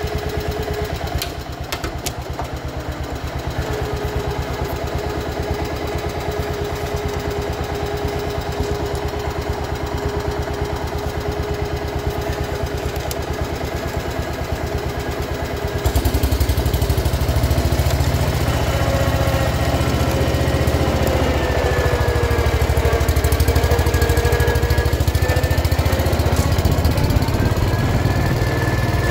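1971 John Deere 140 H3 garden tractor's single-cylinder Kohler engine running with a fast, even beat, along with a thin whine that wavers up and down in pitch. About halfway through the engine gets louder and fuller.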